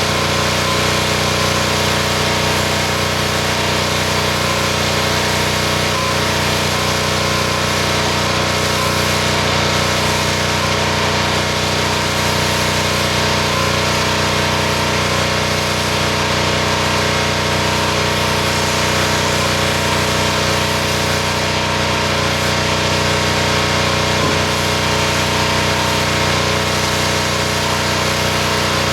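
Engine-driven pressure washer running steadily at a constant pitch, with an even hiss over the engine note.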